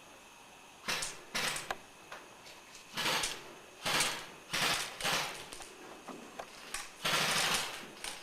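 Irregular scraping and crunching noises, about ten in a row starting about a second in, each lasting a fraction of a second, like rough movement against the microphone or over debris.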